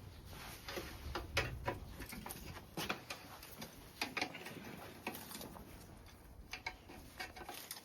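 Irregular clicks and light metallic taps of hand tools and parts being worked loose during a motorcycle teardown.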